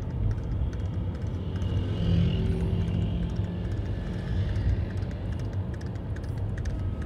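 Steady traffic rumble and road noise heard from a moving vehicle, with a motorcycle engine passing close about two seconds in.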